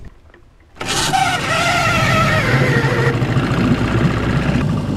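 1987 Evinrude 8 hp two-stroke outboard catching about a second in, revving briefly, then settling to a steady run now that its fuel line has been primed with the bulb.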